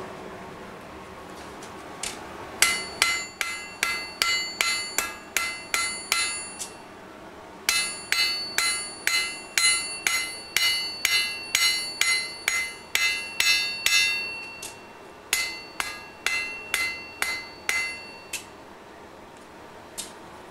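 A hand hammer strikes a red-hot steel bar on an anvil in three runs of quick blows, roughly three a second, each blow ringing out; there are short pauses between runs. The smith is forging the point and barb of a fire poker.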